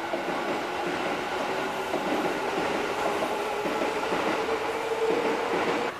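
Kintetsu electric train running past, its wheels clattering over the rail joints and a motor hum rising slightly in pitch; the sound drops off suddenly at the end.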